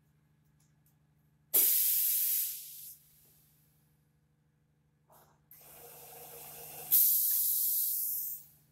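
Pneumatic line-type heat press venting compressed air: two loud hisses of exhaust air, one about a second and a half in and a second one near the end, as the press cycles. Before the second hiss a quieter rising mechanical running sound builds as the table shuttles.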